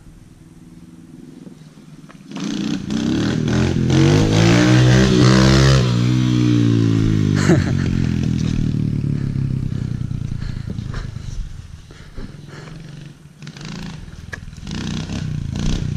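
Kawasaki KLX110 pit bike's small single-cylinder four-stroke engine, coming in about two seconds in, rising in pitch to its loudest as it passes close, then dropping in pitch and fading as it rides off. It grows louder again near the end as the bike comes back.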